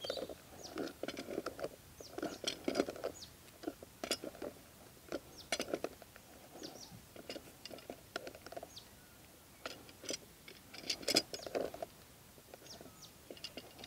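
Two pairs of multi-grips working the plastic nut and body of a polyethylene compression fitting: irregular clicks, creaks and scrapes as the jaws grip, turn and re-grip to tighten the nut up toward the body's flange.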